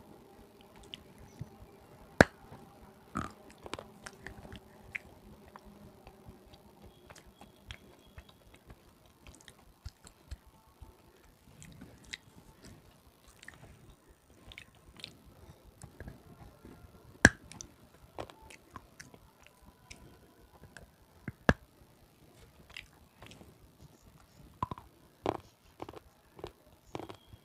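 Close-up chewing of crunchy red slate, with sharp crunches between softer chewing. The loudest crunches fall about two seconds in, near the middle and about two-thirds through, with a quick run of them near the end.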